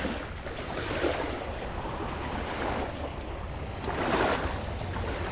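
Shallow water sloshing and lapping, swelling a couple of times, with wind noise on the microphone.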